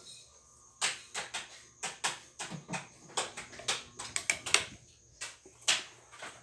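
An irregular run of about a dozen sharp clicks and knocks, like small hard objects being handled and set down.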